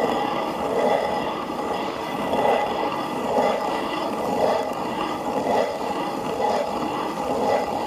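Hand-turned stone quern (chakki) grinding roasted wheat and flax seeds: a continuous rumble of the upper stone turning on the lower, swelling about once a second.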